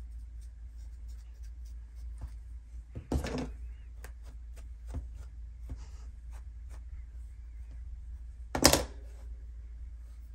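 Handling noise from working a fur dog-head model with a paintbrush and a plastic comb: light scratchy ticks and taps, with two louder knocks, one about a third of the way in and one near the end. A steady low hum sits underneath.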